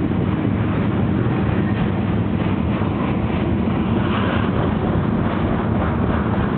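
Freight train rolling past: a steady low rumble with a faint, rapid clatter of wheels over the rails.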